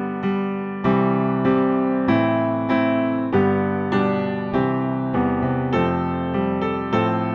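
Piano music: notes and chords struck about every half second to second, each fading before the next.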